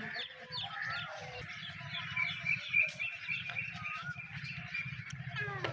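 Small birds chirping over and over in quick short notes, with a steady low hum underneath.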